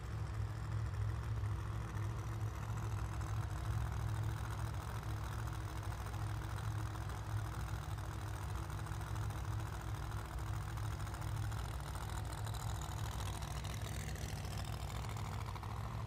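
Pro Modified drag cars' engines idling steadily on the starting line, a constant low rumble.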